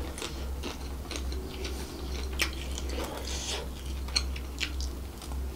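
Close-miked chewing of a mouthful of seafood fried rice, with scattered short, sharp wet mouth clicks.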